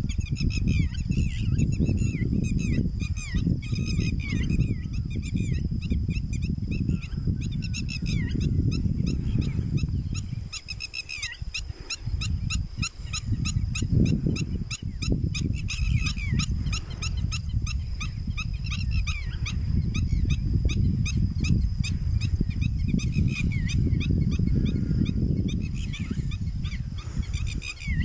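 Wind buffeting the microphone, loudest at the low end and easing for a few seconds near the middle. Over it, birds call in many rapid high-pitched chirps, and a steady high tone runs underneath.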